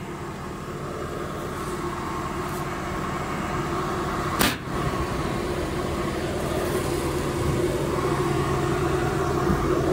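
Tractor engine running steadily, slowly growing louder, with one sharp knock about four and a half seconds in.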